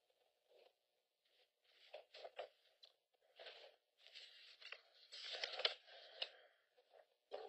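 Faint rustling and scraping of papers being handled, in short irregular bursts that are busiest about five seconds in.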